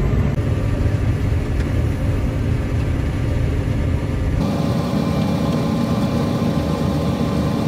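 Combine harvester engine running steadily. About four seconds in the sound changes abruptly to another steady machine drone with a more even hum.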